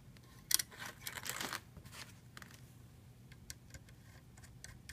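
Hands handling quadcopter frame parts while fitting a landing-gear leg: a sharp click about half a second in, about a second of rustling and scraping, then scattered light ticks.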